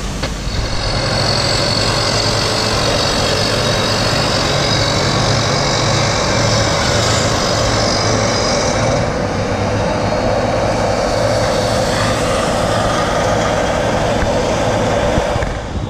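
Heavy diesel construction machinery running steadily: a low engine drone under a constant hiss of noise.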